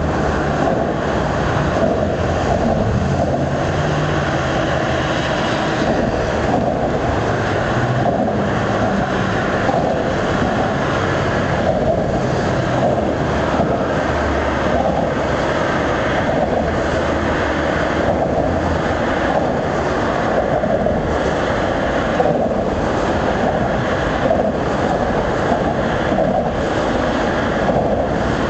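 Steady rushing noise of wind and moving water, with a faint low rumble underneath.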